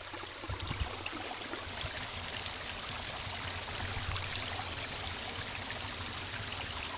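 Overflow water from a pond running steadily through a channel and over a fish trap, a constant rushing.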